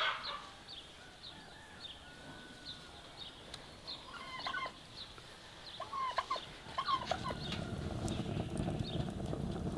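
Domestic fowl giving two or three clusters of short calls around the middle, over a small bird chirping steadily about twice a second. A low steady rumble sets in near the end.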